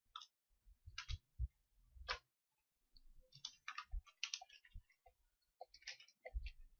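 Faint, irregular clicking and tapping of a computer mouse and keyboard, many short clicks at uneven intervals.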